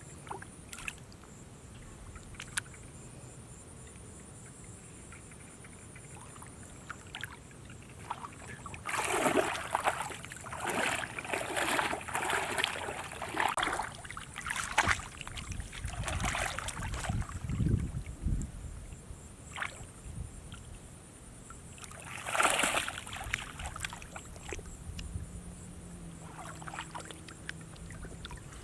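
Water splashing and sloshing in shallow water as hands work through it, in irregular bursts that are loudest from about a third of the way in to just past halfway, with one more burst later on.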